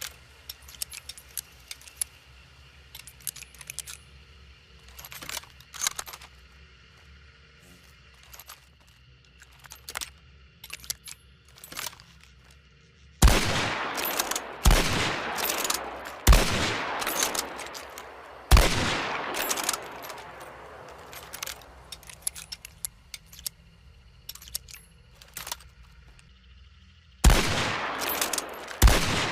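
Krag-Jørgensen bolt-action rifle: scattered sharp metallic clicks for the first dozen seconds, then four loud shots about one and a half to two seconds apart, each ringing out. More clicks follow, then two more shots near the end.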